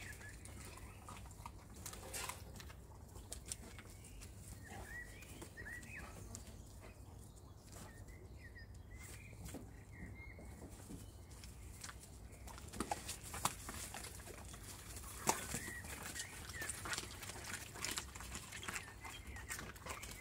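Arctic wolves whining in short, high, bending squeaks. In the second half these give way to a busier run of short, sharp sounds.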